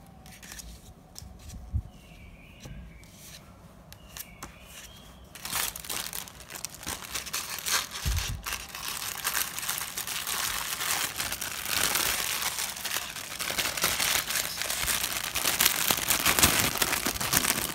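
Thin clear plastic bag crinkling as a folded towel is worked back into it. Only faint handling sounds for about the first five seconds, then dense crinkling that grows louder toward the end.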